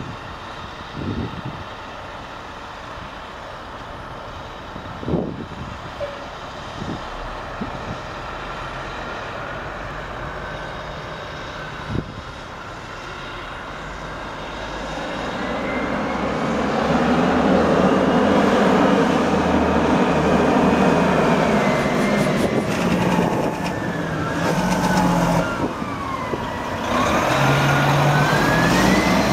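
Fire trucks' diesel engines rumbling closer, growing much louder about halfway through as the rigs approach and pass. Over them a faint siren wails, its pitch sliding slowly down and then back up near the end.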